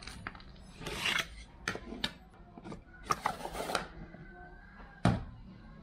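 Small steel fishing hooks and split rings handled in a wooden compartment box: scraping and clicking of metal against wood, loudest around a second in and again from three to nearly four seconds in, then a single loud knock about five seconds in.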